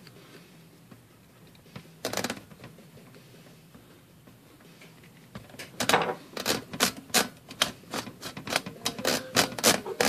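Royal standard typewriter's platen turning, its line-space ratchet clicking about three times a second over the last few seconds as paper is fed in, after a brief clatter about two seconds in.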